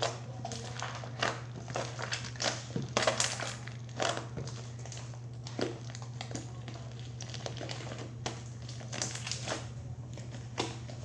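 Fluffy slime made from shaving cream and glue being squeezed and kneaded by hand, giving a stream of irregular short crackles and squishes. A steady low hum runs underneath.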